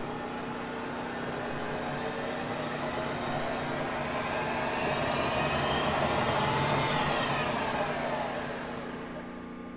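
Comet milling machine's motor and spindle running on its variable-speed drive over a steady hum. Its whine rises in pitch as the speed is turned up, peaks about seven seconds in, then falls away again near the end.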